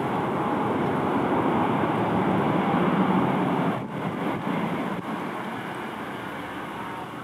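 Jet engine noise from a Boeing 787-9 Dreamliner decelerating on its landing rollout, spoilers up. The noise swells, drops off suddenly a little under four seconds in, then fades away.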